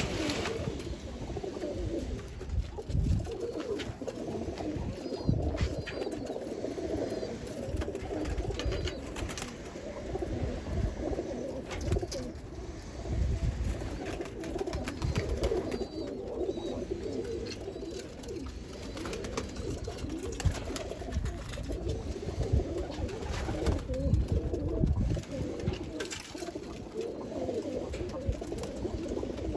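Many pigeons cooing at once in a continuous overlapping chorus, with occasional low thumps underneath.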